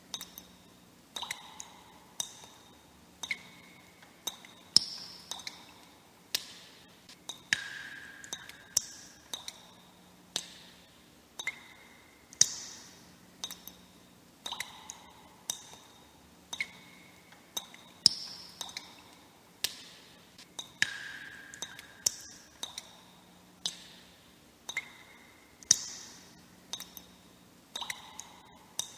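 Water drops falling one at a time into water, about one to two a second. Each lands with a sharp plink and a brief ring, and the pitch shifts from drop to drop.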